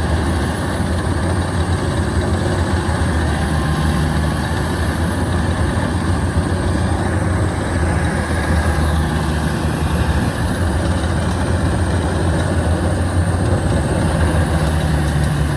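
Combine harvester's diesel engine running hard under load in deep mud as the machine tries to climb out: a loud, steady low drone whose pitch shifts a little several times.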